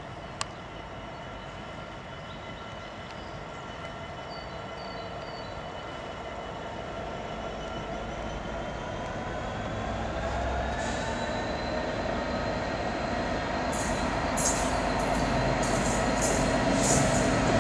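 EWS Class 66 diesel locomotive, with its two-stroke V12 engine, approaching at the head of a freight train. The engine drone grows steadily louder and its note rises about two-thirds of the way through. Near the end, a quick series of high-pitched wheel squeals cuts in.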